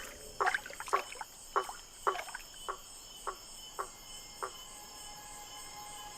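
A male frog calling from his nest: short, sharp notes about two a second, eight or so in a row, stopping about four and a half seconds in. A steady chorus of insects runs underneath.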